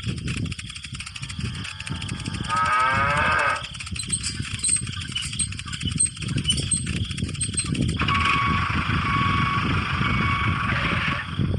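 A cow moos once, a falling call about two and a half seconds in, over a low, uneven rumble. Near the end a steady tone holds for about three seconds, with faint high chiming ticks.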